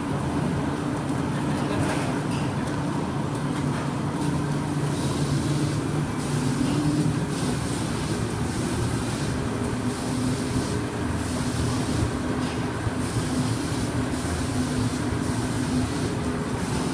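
Slitter scorer machine for corrugated cardboard running steadily with a low mechanical hum, with a hiss that comes and goes about once a second.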